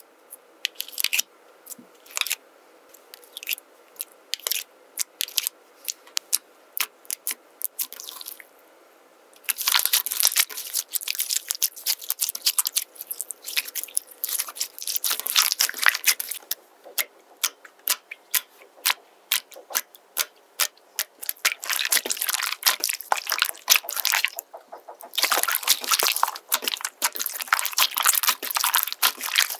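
Squishy slime being squeezed and worked, with wet, crisp clicks and crackles. Separate clicks come at first, then from about nine seconds in there are dense runs of crackling with short lulls.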